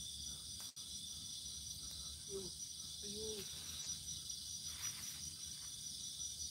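Night insect chorus: crickets trilling in a steady, high, even drone, with a couple of faint brief low sounds near the middle.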